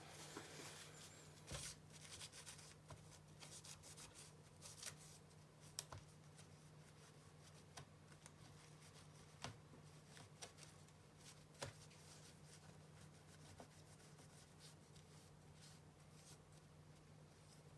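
Mostly near silence: faint scattered clicks and rustling of laptop parts being handled, over a low steady hum.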